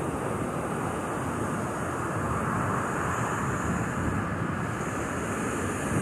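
Surf breaking offshore and thin waves washing up over a sandy beach, a steady rushing hiss, with wind rumbling on the microphone.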